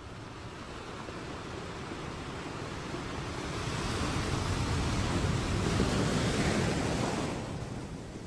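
Ocean surf: a wave rushes in, building for several seconds, then ebbs away about seven seconds in.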